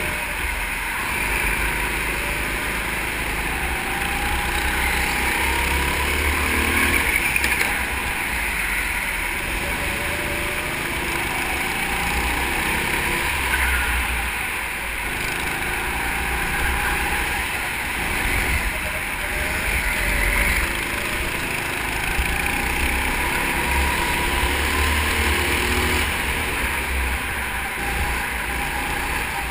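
Go-kart engine heard from on board while lapping, its pitch repeatedly rising and falling as the kart speeds up and slows, over a heavy low rumble.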